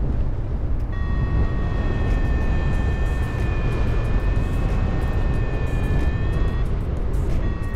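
Wind rushing over the microphone of a paraglider in flight, with a variometer's steady electronic tone that starts about a second in, wavers slightly in pitch and stops near the end, then sounds again briefly.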